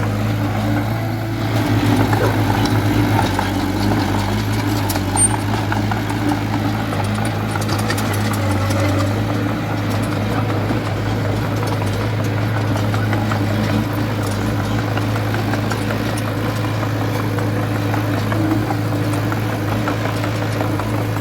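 A heavy diesel earthmoving machine's engine running steadily with an even low hum, with occasional light clicks and rattles.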